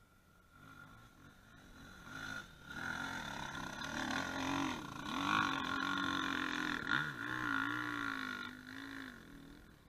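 Dirt bike engine, faint at first and then louder from about two and a half seconds in, its revs rising and falling as the bike climbs a loose sandy slope, then fading near the end.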